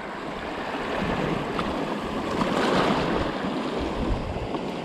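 Small waves washing and swirling over a rocky shore platform, swelling about halfway through.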